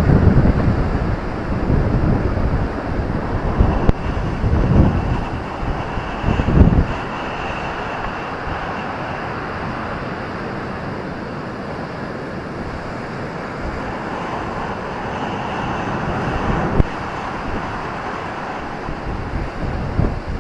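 Ocean surf with wind buffeting the microphone: heavy low gusts in the first seven seconds, then a steadier roar of waves.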